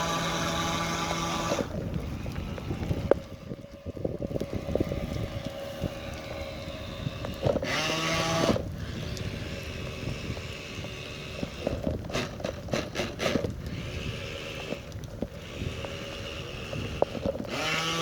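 Nikko Torpedo RC boat's 9.6-volt electric motor running in spurts: a steady whine at the start, again briefly about eight seconds in and at the end, with quieter stretches between where its pitch slides up and down as the throttle changes.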